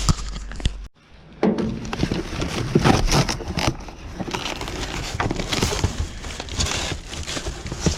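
Rustling, crinkling and irregular knocks of items and bags being handled and moved about. The sound drops out briefly about a second in.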